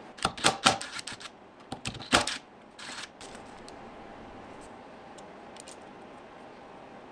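A quick run of sharp clicks and knocks from hose support brackets being handled and fitted, followed by a short rustle about three seconds in, then quiet room tone with a few faint ticks.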